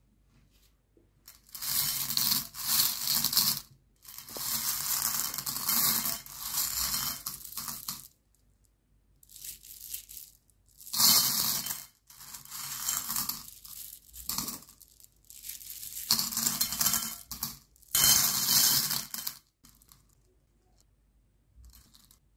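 Small candy-coated chocolates being stirred and swept around a plate by hand, a rattling clatter of candies against the plate and each other in repeated bursts of a second or few. The clatter stops about three seconds before the end.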